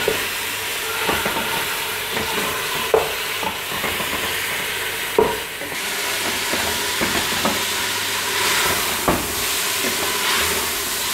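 Beef pieces sizzling as they fry in ghee in an open aluminium pressure cooker, stirred with a wooden spatula that knocks against the pot a few times. The meat is being fried on high heat so that its own juices cook off.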